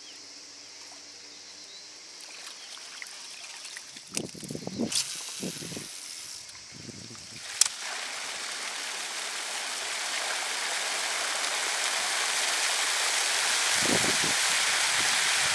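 Lake fountain starting up: a steady hiss of spraying and falling water that begins about halfway through and grows louder. A few low knocks come about four to six seconds in and again near the end.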